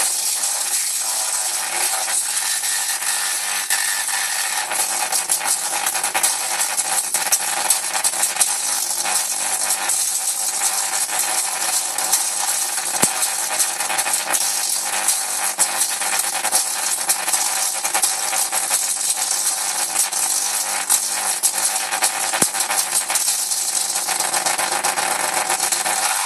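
Audio-modulated solid-state Tesla coil's spark discharge reproducing an audio signal: a steady buzz with dense crackling.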